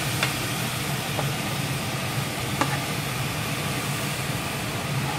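Marinated beef mince sizzling steadily in hot oil in a steel pot on a low flame, a constant frying hiss over a low hum. A few light clicks of a spoon scraping the bowl as the mince is poured in.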